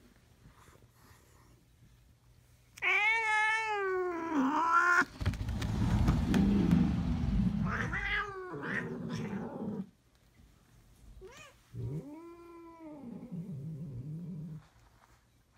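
A cat yowling in long, wavering calls: one about three seconds in and another near the end. Between them come a few seconds of scuffling noise with shorter yowls as the cats tussle.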